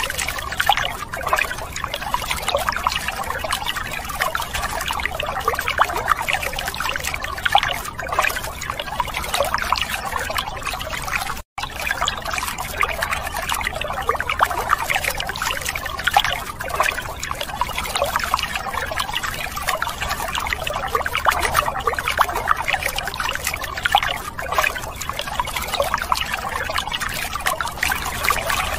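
A thin stream of water pouring and splashing steadily onto plastic toy vehicles, washing mud off them. It breaks off for an instant about eleven seconds in.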